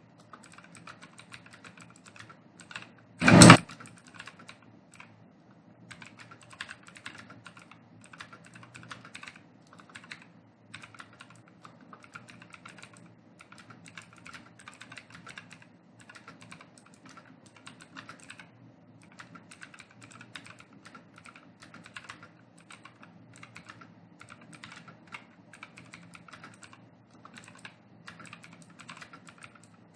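Fast typing on a computer keyboard: rapid runs of key clicks with short pauses between bursts. A single loud thump about three seconds in.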